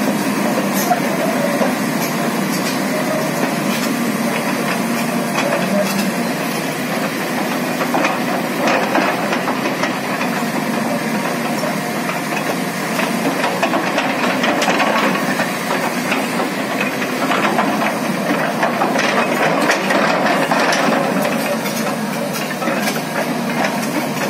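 A large excavator's diesel engine working under load while it drags a stripped excavator undercarriage, the steel tracks grinding, scraping and clanking over gravel.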